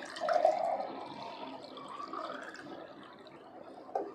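Water poured from a plastic bottle into a drinking glass: a splashy gush at first, then a pour that rises in pitch as the glass fills. A short knock near the end.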